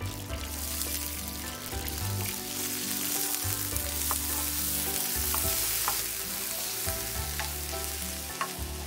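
Ginger-garlic paste and chopped garlic frying in ghee and oil in a pan: a steady sizzle, stirred, with a few light clinks.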